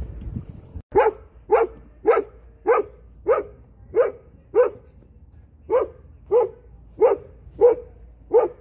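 A dog barking repeatedly at an even pace, about a dozen barks with a short pause midway.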